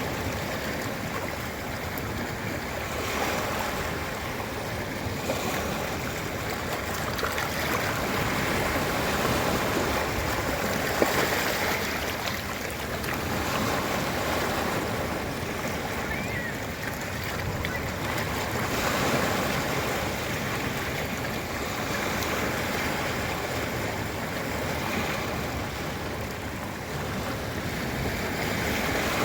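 Ocean waves breaking and washing on a beach: a steady rush of surf that swells and eases every few seconds, with one brief sharp tick about eleven seconds in.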